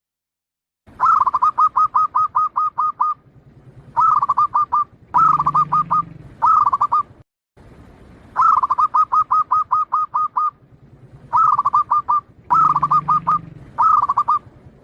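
Zebra dove (perkutut) singing in phrases of rapid, staccato cooing notes. It gives one long run, then three shorter ones, and after a brief silent gap the same sequence comes again. The song starts about a second in.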